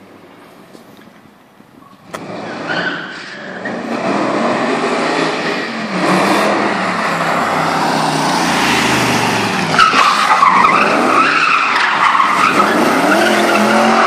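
V8-swapped BMW E30 pulling away hard about two seconds in, its engine revving up and its tyres squealing as it drifts, loudest in the second half.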